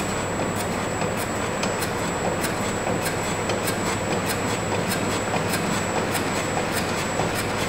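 Rusty chain-and-threaded-rod drive mechanism running slowly, with a steady low hum and a faint high whine under a regular click a bit under twice a second.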